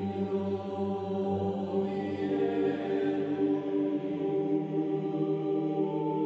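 Slow, chant-like Buddhist devotional music: sustained voices held over a steady low drone.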